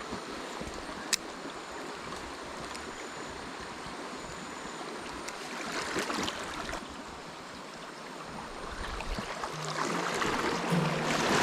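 Mountain stream water flowing with a steady rush, with one sharp click about a second in.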